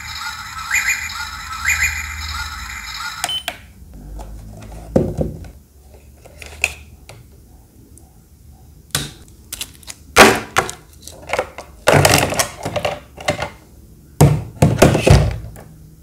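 Electronic beeping tune from a desktop aquarium's built-in LCD clock, repeating about once a second, cuts off abruptly about three seconds in. Then scattered knocks, thuds and short rustles as the plastic tank and its USB cable are handled.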